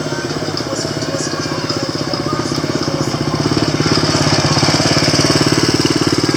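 An engine running close by with a rapid, even throb, getting louder about three and a half seconds in.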